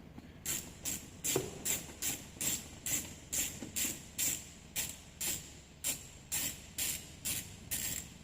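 Hand ratchet clicking in an even rhythm, about two to three sharp metallic clicks a second, as a screw in the car door is worked out.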